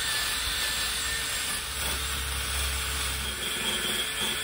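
Steel wire brush driven by a drill, scrubbing the gasket surface of a Dodge 2.7L V6 cylinder head clean: a steady, unbroken scouring.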